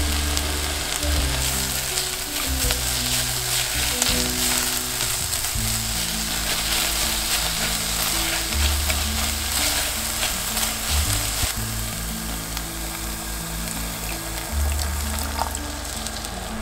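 Chopped onion and zucchini sizzling in oil in a pot as a seasoning paste is stirred in, the spoon scraping the pot now and then. The sizzle thins a little after about eleven seconds. Light background music plays underneath.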